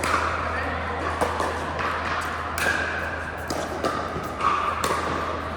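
Pickleball paddles striking a plastic pickleball during play: a string of sharp hits at uneven intervals, echoing in a large hall.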